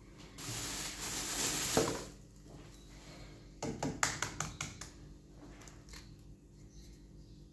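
Kitchen handling sounds while eggs are cracked into a glass bowl of oats: about a second and a half of rustling, then a quick cluster of sharp taps and clicks about four seconds in.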